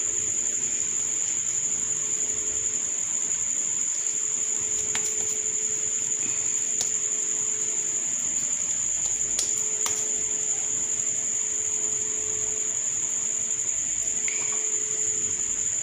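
A steady high-pitched whine throughout, with a few faint clicks and taps as a plastic shami kabab mould is filled and pressed by hand.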